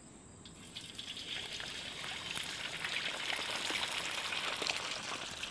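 A whole snakehead fish sizzling as it deep-fries in hot oil in a wok. The hiss builds over the first few seconds as the fish goes in, with small crackling pops through it.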